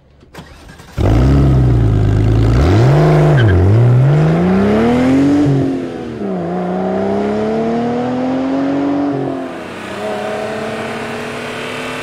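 Car engine coming in loud about a second in at a low steady note, revved once, then accelerating through the gears: the pitch climbs, drops at two gear changes, and climbs again each time.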